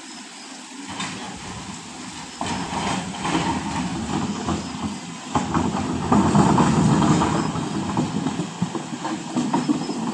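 Engine running with scattered knocks and clatter, quieter at first, louder from about two seconds in and loudest a little past the middle.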